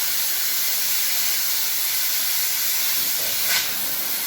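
Oxy-fuel cutting torch flame hissing steadily, with one short sharp snap about three and a half seconds in.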